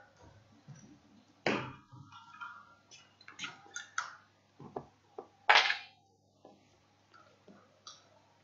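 Handling noise on a body-worn microphone being sorted out after it failed: an irregular series of clicks, knocks and rustles, the two loudest about a second and a half and five and a half seconds in.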